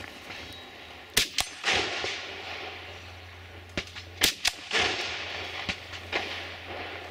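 Rifle shots fired in two quick groups, about a second in and about four seconds in, with a few weaker shots after. Each group trails off in a rolling echo.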